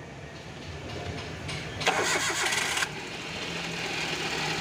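Alto 800's three-cylinder petrol engine being started and running, with a louder burst of noise from about one and a half to three seconds in. This is a test start after cylinder-head and timing-belt work on an engine that had been misfiring.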